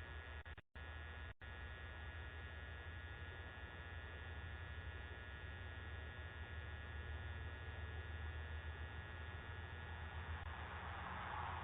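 Steady electrical hum and hiss from a Ring video doorbell's recording, cutting out twice briefly about a second in.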